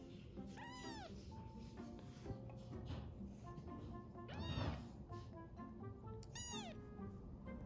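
A very young kitten, just over 200 g, mews three times: short thin calls that rise and then fall in pitch, the middle one the loudest. Soft background music plays under them.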